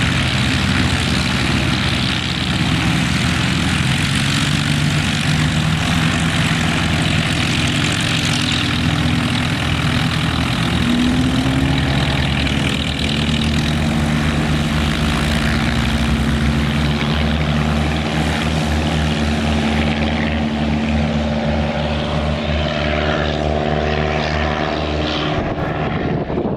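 Piston engines and propellers of light single-engine taildragger planes taking off from a grass strip, a loud, continuous drone. About halfway through, one engine's note rises, then holds steady. Near the end the sound grows thinner.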